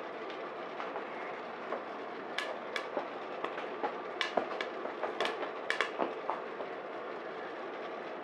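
Coffee beans popping in first crack: scattered sharp cracks, thickest in the middle, over the steady whir of a turbo convection oven and West Bend Stir Crazy popcorn-popper roaster.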